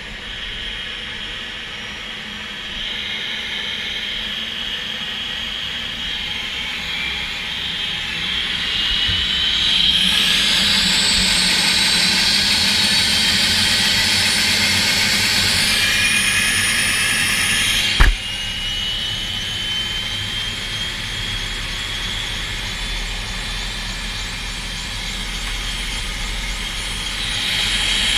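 Helicopter turbine engine spooling up during start: a steady whine that slowly rises in pitch and grows louder. A single sharp click comes about eighteen seconds in.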